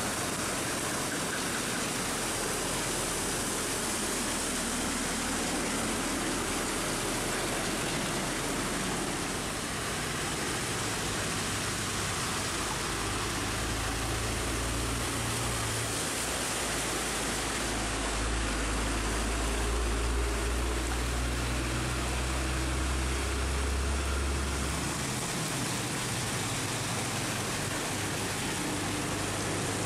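Heavy rain falling steadily. A large truck's engine drones low as it passes from about the middle, loudest a little after two-thirds of the way through, then falls away.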